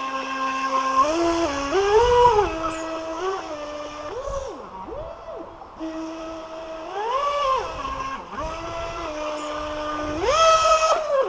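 Electric motor and water jet pump of a small 3D-printed radio-controlled jet boat, running on a 3S LiPo battery: a pitched whine that steps and glides up and down with the throttle, dropping low about halfway through and rising to its loudest near the end as the boat turns hard.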